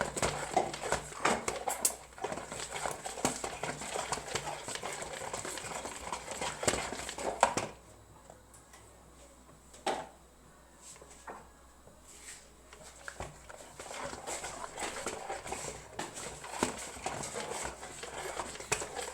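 Eggs and sugar being beaten by hand in a bowl: a utensil clicks and knocks rapidly against the bowl. The beating pauses about 8 s in for roughly five seconds, with only a few single knocks, then picks up again.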